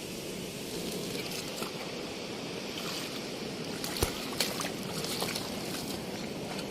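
Shallow seawater washing and splashing, with a few sharp knocks about four seconds in.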